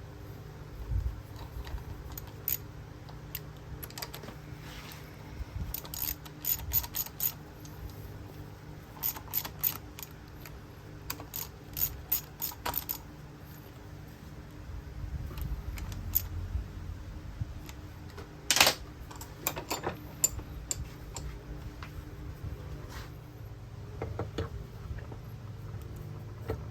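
Light metallic clicks and taps from metal parts or tools being handled, coming in small clusters, with one sharper knock about two-thirds of the way through, over a low steady hum.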